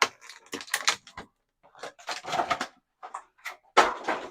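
Irregular clicks, taps and rustles of small hard-plastic action-figure accessory hands being handled, with a few sharper clicks.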